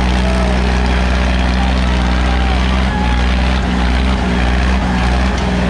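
Sonalika DI-35 tractor's diesel engine running hard and steady under heavy load as it drags a disc harrow through dry soil, its exhaust pouring black smoke.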